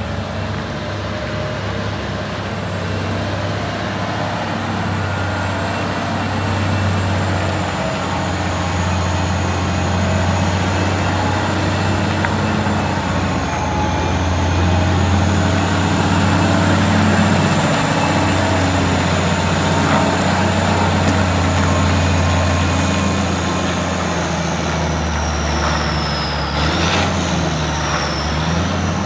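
Cummins NTC 290 turbocharged inline-six diesel of a 1976 Kenworth C500 winch truck running as the truck drives slowly, a faint high whine over the engine note. The engine note drops briefly twice, and a short sharp noise comes near the end as the high whine falls away.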